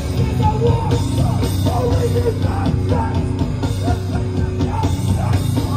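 Hardcore punk band playing live through a festival PA, with distorted guitars, bass and drums, heard from inside the crowd.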